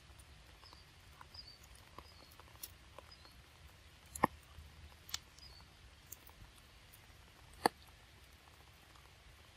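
Baby monkey biting and chewing a piece of mango: scattered small wet clicks and smacks, with two sharp, much louder ones about four and seven and a half seconds in. Faint bird chirps behind.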